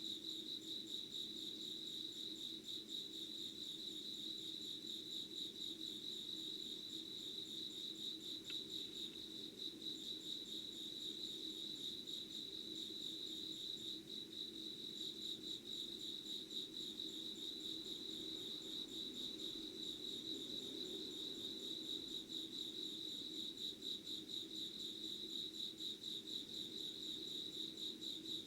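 Insects chirping in a dense, steady chorus, a rapid pulsing trill high in pitch, with a faint low hum beneath.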